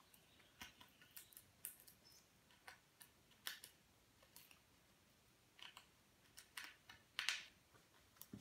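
Faint, irregular small clicks and scratches from a baby fox squirrel scrabbling about and handling a stick and a plush toy. A longer scratchy burst comes about seven seconds in.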